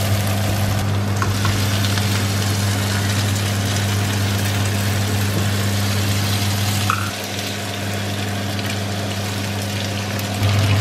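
Pepper sauce sizzling in a frying pan over a steady low hum. About seven seconds in the sizzle quietens as drained spaghetti is tipped into the pan.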